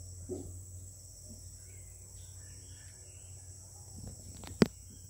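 Mantled howler monkey giving short, low grunts, a reassuring contact call to the rest of its troop, the strongest about a third of a second in, with a few fainter ones after. Insects keep up a steady high-pitched drone, and a single sharp click about four and a half seconds in is the loudest sound.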